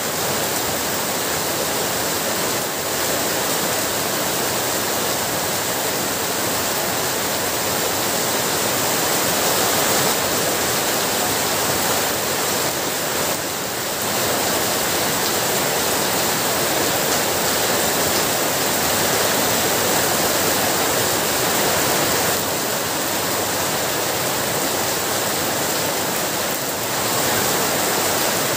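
Heavy rain falling steadily: a dense, even hiss with small swells in loudness.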